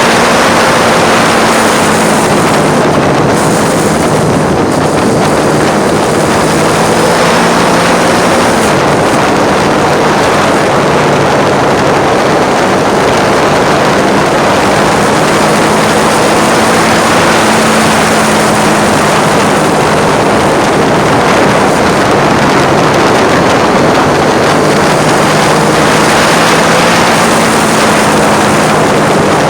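Heavy wind buffeting on a phone microphone while riding a Triumph Street Triple, with the bike's 675 cc three-cylinder engine note underneath, its pitch shifting a couple of times with throttle and gears.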